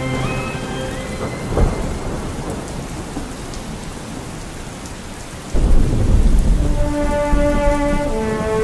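Steady heavy rain, with a short crack of thunder about a second and a half in. A little past halfway, a louder, longer rumble of thunder starts suddenly and rolls on.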